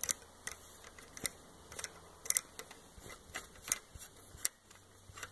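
Irregular light metallic clicks and ticks, about a dozen in five seconds, as a hand-turned helicoil insertion tool is spun back out of a freshly coiled bolt hole in an aluminum cylinder head.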